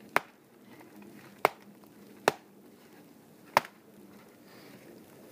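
Four sharp chops of a blade striking wood, unevenly spaced.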